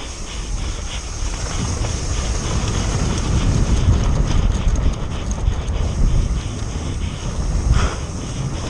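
Mountain bike descending a muddy dirt trail at speed: wind buffeting the camera microphone over a low rumble of tyres on dirt, with the bike rattling over bumps. It grows louder after about the first second.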